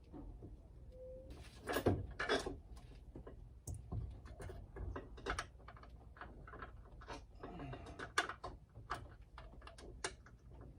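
Irregular metallic clicks, clinks and knocks as a replacement front strut assembly and its mounting bolt are handled and worked into place, the loudest knocks about two seconds in and just after eight seconds.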